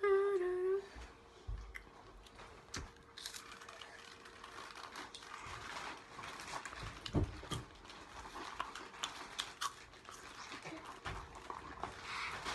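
A boy gives a short hummed "mm" that falls in pitch. About three seconds in, a long run of close crunching and crinkling with many sharp clicks begins as he eats spicy chips.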